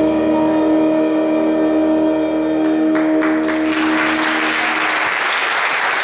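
Jazz big band of saxophones, trumpets and trombones holding its final chord, which dies away about halfway through as audience applause starts and grows to fill the rest.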